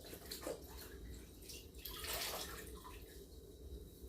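Water splashing and dripping as a floor is mopped by hand with a wet cloth, in a few short swishes, the strongest about two seconds in.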